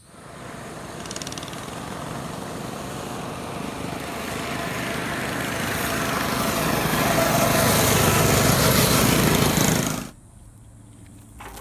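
A motor engine running and growing steadily louder, then cut off abruptly about ten seconds in.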